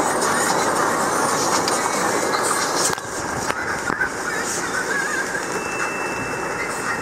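Storm rain pattering on a Land Rover Defender, heard from inside the cabin over the vehicle's steady running noise as a dense, crackling hiss, dipping slightly about three seconds in.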